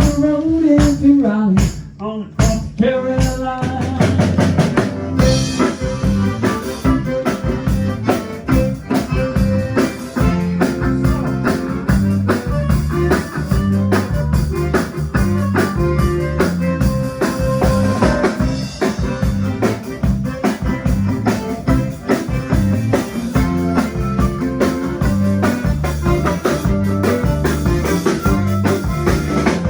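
Band playing an instrumental passage on drum kit and bass, with a steady beat of snare and bass drum.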